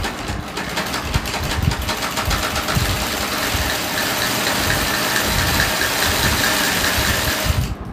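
Domestic sewing machine running steadily as it stitches a folded-over hem along a curtain, its needle clattering rapidly; it stops near the end.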